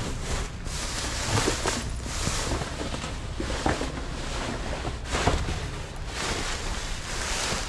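Wind buffeting the microphone with a steady rumbling noise, broken by a few short knocks and rustles.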